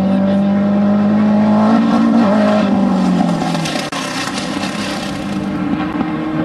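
Off-road desert race vehicle engine running hard, its pitch climbing over the first couple of seconds, a second engine tone in briefly, and a burst of rushing noise around the middle.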